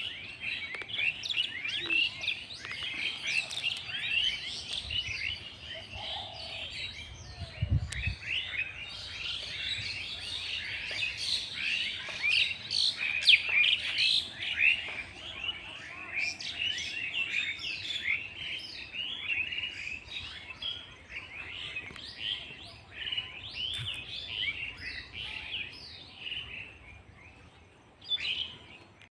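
Many small birds chirping at once in a dense, continuous chorus of short, quick calls. There is a brief low rumble about eight seconds in, and the chorus fades out near the end.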